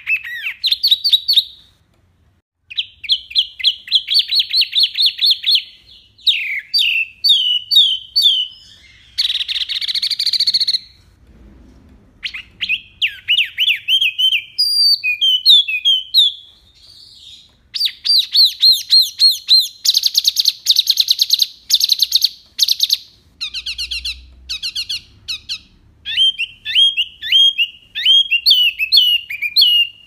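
A caged wambi (mini) songbird singing a varied song: rapid trills and fast runs of repeated high chirps, phrase after phrase, with short pauses between phrases.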